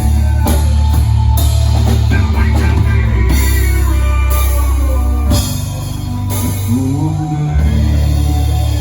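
Heavy metal band playing live: pounding drum kit with cymbal crashes over a heavy, sustained bass and guitar sound. The low bass drops back briefly about five seconds in before coming back.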